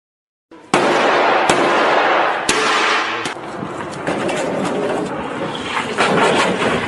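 Supercar engine and exhaust at speed: a loud rushing noise that starts abruptly about half a second in, broken by sharp cracks, the first few about a second apart and more near the end.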